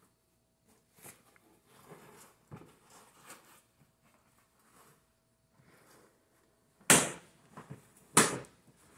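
Parts of a Burigotto Touring infant car seat being handled and fitted, with faint rustling and light clicks. Near the end come two sharp, loud knocks a little over a second apart.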